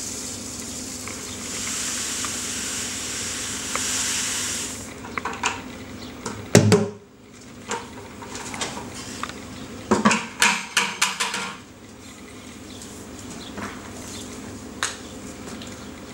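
Crushed malt poured from a plastic bucket into a cooler mash tun, a steady rushing hiss for about five seconds. Then a heavy thump and a quick run of plastic knocks and clatters as the bucket is handled, with a few faint clicks near the end.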